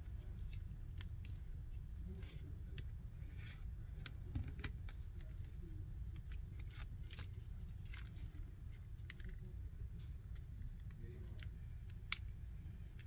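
Scattered small clicks and taps of hands handling an opened pocket Wi-Fi router, pressing its plastic housing and battery connection into place, with one sharper click near the end. A low steady hum runs underneath.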